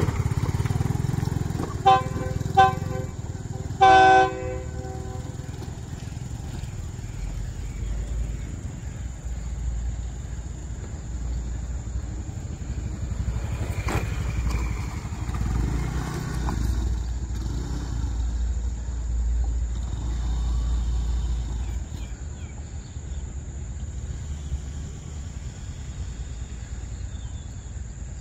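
Diesel railcar train horn sounding two short toots and then a slightly longer blast about four seconds in, followed by the low, steady rumble of the train's diesel engine as it approaches.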